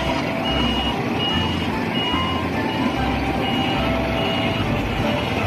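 Truck reversing alarm beeping steadily, about one high beep every three-quarters of a second, over a low engine rumble.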